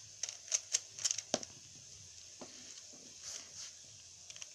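Plastic Rubik's cube being turned by hand: a quick run of sharp clicking layer turns in the first second and a half, then only a few faint, scattered clicks and handling sounds.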